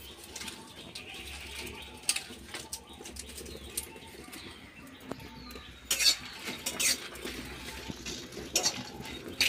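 A metal spatula clicking and scraping against a steel wok as dry red chillies are dry-roasted, with a few sharper clatters spread through.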